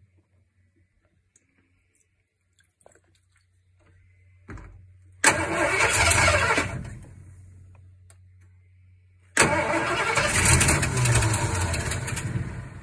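The truck's carbureted gasoline engine being cranked over twice by the starter, in two sudden loud bursts: a short one about five seconds in that dies away, then a longer one about nine seconds in. The engine does not settle into a steady idle, as on an engine that is hard to start.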